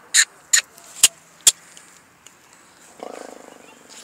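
A pony snorting: a fluttering nasal rattle about three seconds in, lasting just under a second and fading away. Before it, four sharp clicks come within the first second and a half.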